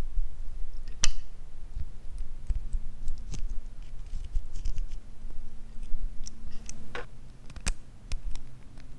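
A metal-tipped tool scraping and picking makeup out of a small metal tube: scattered soft scratches and ticks, with a sharp click about a second in and two more near the end.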